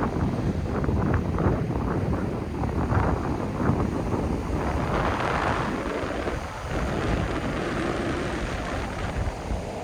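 Strong gusting wind buffeting an iPhone 13 Pro's microphone, over heavy sea surf breaking and washing on the beach, rising and falling in surges.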